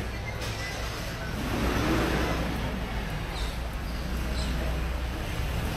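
Motor vehicle running with a steady low rumble, swelling louder about two seconds in, amid street traffic noise.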